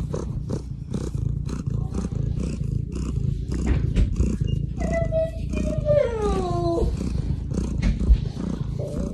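Domestic cat purring close to the microphone, a steady low rumble, with one long pitched call that holds and then falls, about five seconds in.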